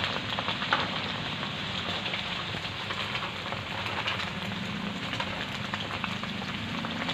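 Cubes of pork fat for chicharon deep-frying in hot cooking oil in a wok, being crisped: a steady, dense sizzle with scattered crackles and pops.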